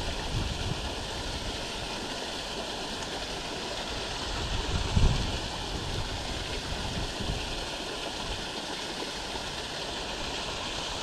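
Water pouring through leaking canal lock gates into the lock chamber, a steady rush. Wind buffets the microphone in low gusts, the strongest about five seconds in.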